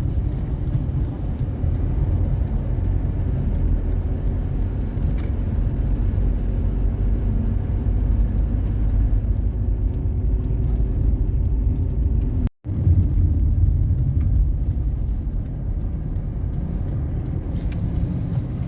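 Steady low rumble of a car driving on the road, heard from inside the cabin, with a faint engine hum that drifts slightly in pitch. The sound drops out for a split second about twelve seconds in.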